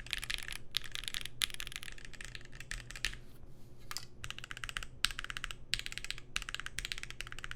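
Fast typing on a Keychron Q1 aluminium-plate mechanical keyboard with lubed, filmed Pinoko switches and GMK keycaps, tape-modded, with the polyfill taken out of the case. It makes a rapid run of key clacks in bursts separated by brief pauses.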